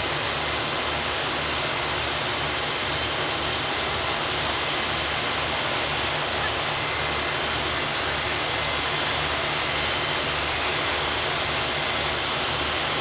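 Steady, even roar from fire engines running their pumps to feed aerial ladder water streams.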